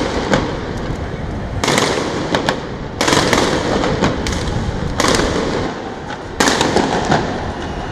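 Police gunfire: four heavy bangs about a second and a half apart, each trailing off in a long echo, with a few sharper single cracks in between.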